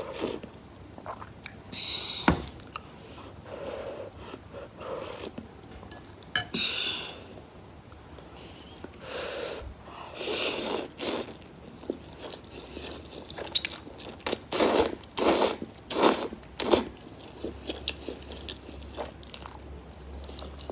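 Close-miked eating of spicy instant noodles: irregular biting and chewing sounds, with a run of louder bites about halfway through.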